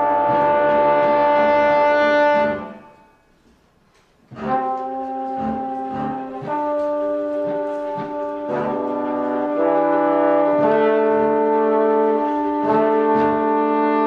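Tenor and bass trombones playing a duet with a small band. A held brass chord stops about two and a half seconds in, and after a silence of about a second and a half the trombones come back in with long sustained notes over a steady low pulse.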